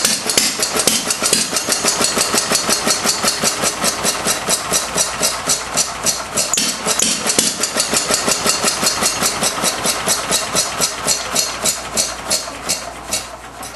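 Fairbanks-Morse 2 hp Z Style D stationary engine running with an even run of sharp firing strokes, about five a second. Near the end the strokes slow and fade as the engine dies: its ignition is being shorted out with a wire to shut it down.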